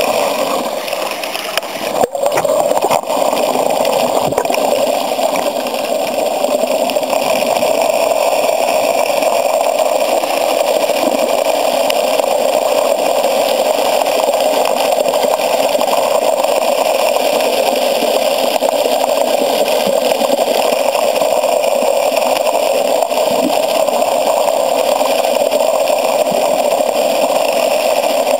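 Steady rush of creek water being drawn into the intake of a 4-inch corrugated Big-O gravity-dredge pipe, heard underwater, with a couple of sharp knocks about two and three seconds in.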